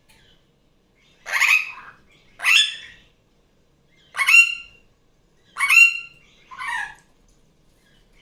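Barraband parakeet (superb parrot) giving five loud, harsh squawking calls, each about half a second long, in two pairs and a final shorter call.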